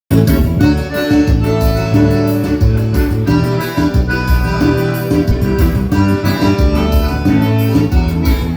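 Dance band playing an instrumental passage with a steady beat, a reedy lead over guitar and bass.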